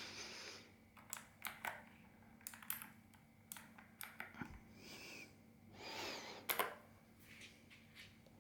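Mechanical keyboard keys clicking in scattered, irregular presses, with a short rustle and two louder clicks about six and a half seconds in.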